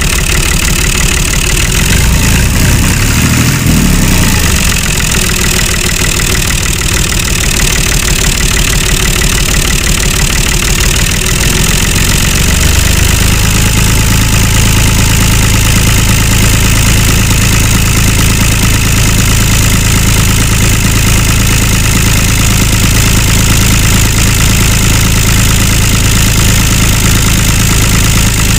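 A tractor engine running steadily with a fast, even pulsing; about twelve seconds in it settles into a steadier, deeper hum.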